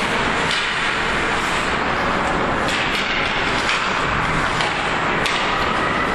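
Ice hockey rink sound during play: a steady noisy arena din with a few sharp knocks of sticks and puck on the ice and boards.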